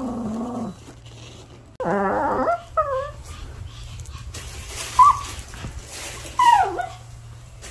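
Maltese dog whining and whimpering with short yips, upset as its owner tries to leave. A low drawn-out whine comes at the start, then a loud wavering cry about two seconds in. Short yips follow around three and five seconds, and a falling whine comes near the end.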